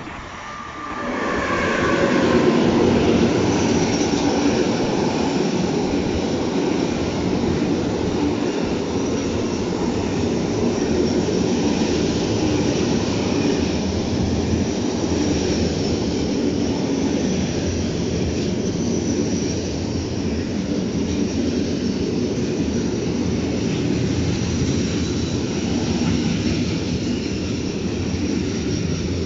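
Freight train hauled by an electric locomotive passing close at speed. The locomotive's whine drops in pitch as it goes by in the first two seconds, then a steady loud rumble of wheels on rail from the pocket wagons carrying semi-trailers, with a thin high tone above it.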